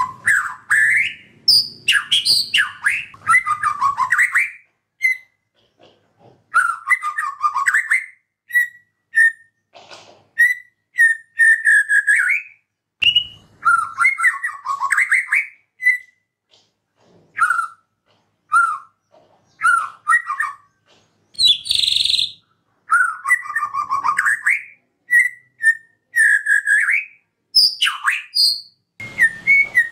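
White-rumped shama singing a string of loud, varied whistled phrases, each a second or two long, with short pauses between them.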